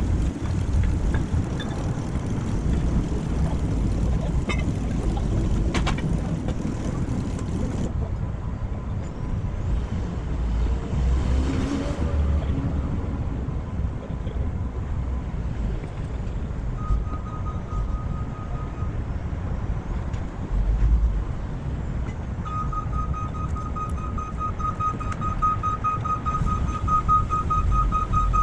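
An engine running steadily with a low rumble. A steady high-pitched tone joins it briefly a little past halfway and again for the last several seconds.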